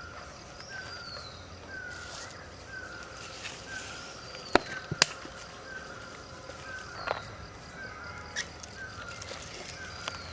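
Birds calling in the forest: a short falling chirp repeated steadily about every half second, with a few higher falling notes. Two sharp clicks or knocks midway are the loudest sounds.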